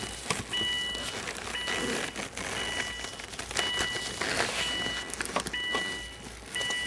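A car's warning chime beeping steadily, about once a second, each beep about half a second long. Underneath are rustling and small clicks from hands seating a small bulb and its socket into the shift selector housing.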